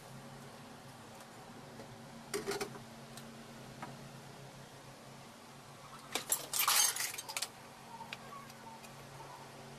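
Dishes and cutlery clinking as a ceramic plate, a bowl and metal utensils are handled: a few clinks about two and a half seconds in, one near four seconds, and a longer clattering run from about six to seven and a half seconds.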